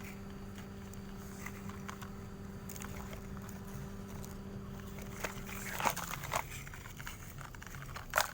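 A toy excavator's small electric motor humming steadily, cutting off about six seconds in, with scattered crunches and clicks of soil being scraped and dug.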